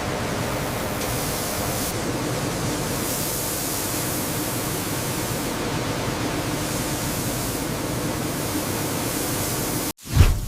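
Steady, dense machinery noise of a grain-cleaning plant: an even hiss with a faint hum under it. It cuts off abruptly near the end, followed by a short low thud.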